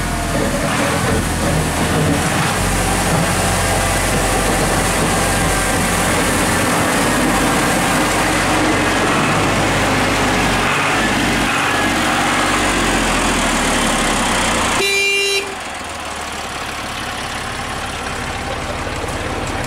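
Farm tractor engine running steadily as the tractor drives up close, then a short horn toot about fifteen seconds in, after which the engine sound is quieter.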